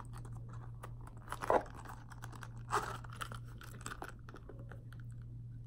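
Hands handling a small round coin purse and its packaging: light rustling and scattered small clicks, with short louder rustles about a second and a half and about three seconds in, over a steady low hum.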